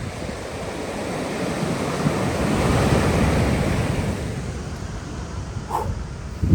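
Sea waves breaking on the shore: one surge of surf builds to a peak about halfway through, then washes back. A short low thump comes near the end.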